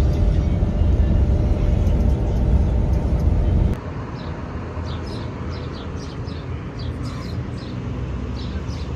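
Steady low rumble of a moving coach heard from inside the cabin, cutting off suddenly a little over a third of the way through. Quieter open-air ambience follows, with a small bird chirping over and over.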